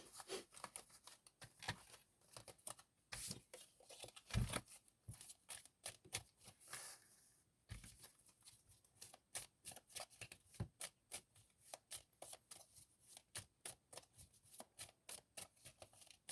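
A tarot deck being shuffled and handled by hand: a long run of soft, quick card flicks and taps at uneven spacing, with a brief sliding sweep of cards about seven seconds in.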